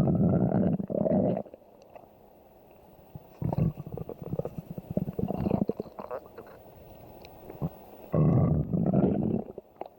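A person's stomach growling. A loud rumbling gurgle stops about a second and a half in. A stretch of quieter bubbling, crackling gurgles follows in the middle, and a second loud rumble comes near the end.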